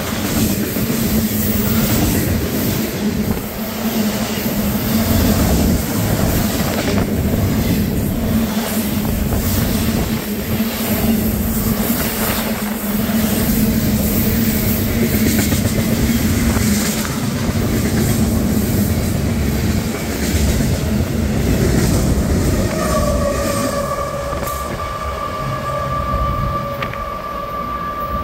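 Freight train rolling past close by: a steady rumble of wheels on rail with repeated clacks over the rail joints. About 23 seconds in, a steady high-pitched tone with several stacked pitches sets in and holds to the end.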